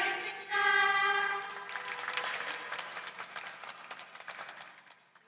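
Audience cheering and clapping. A long high scream stands out about half a second in, then the clapping and cheering die away toward the end.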